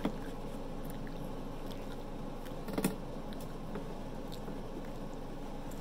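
A person chewing pizza close to the microphone, with small wet mouth clicks and smacks and a louder smack just under three seconds in, over a steady background hiss.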